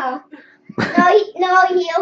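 A young child's high voice vocalizing in drawn-out, sing-song notes, with a short gap early on.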